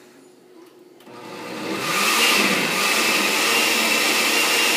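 Countertop glass-jar blender switched on about a second in, spinning up over roughly a second and then running steadily with a high motor whine as it purées softened red chile pods in their cooking liquid.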